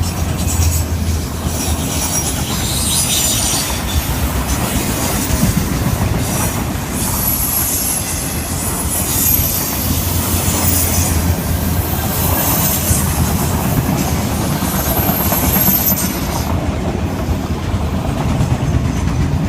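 Freight train cars rolling steadily past with a low rumble and clickety-clack of wheels over rail joints, and intermittent high-pitched wheel flange squeal that dies away about three seconds before the end.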